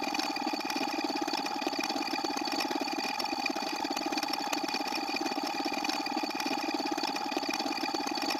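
Steady engine-like drone with a fast, even pulsing, holding one pitch.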